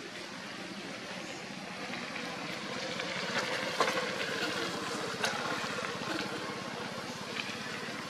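Steady outdoor background noise with a faint low hum, broken by a few sharp clicks or rustles; the loudest is a little before the middle.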